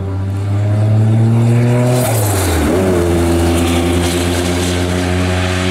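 Twin-turbo V6 of a Noble M12 RSR race car under power, its note rising slowly as it approaches, then dropping sharply in pitch as it passes about two seconds in and carrying on at a lower steady note as it pulls away.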